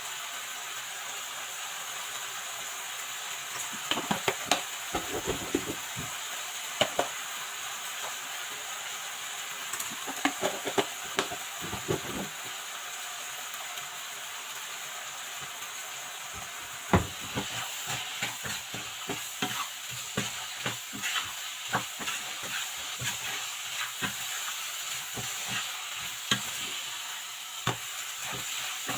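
Mushroom curry frying in a pan, sizzling steadily, while a spoon stirs it with irregular scrapes and clicks against the pan, in two busy stretches.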